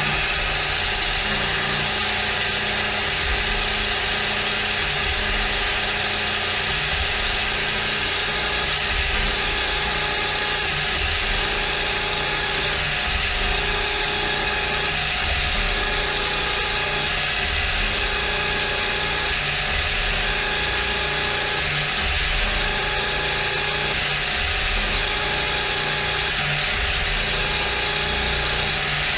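Gear-head CNC milling machine running steadily through a machining pass, its spindle gearbox giving a constant gear whir with several steady tones over a low rumble.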